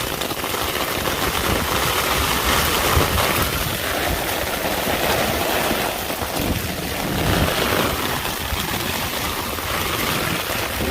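Heavy rain pouring steadily, with gusts of wind rumbling.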